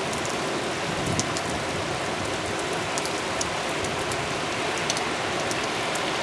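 Heavy rain pouring steadily, with scattered sharp ticks of drops hitting close by.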